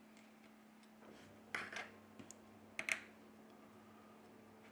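Two short clusters of light clicks and taps, about one and a half and three seconds in, from tweezers and fingertips handling the small parts of an opened smartphone. A faint steady hum lies underneath.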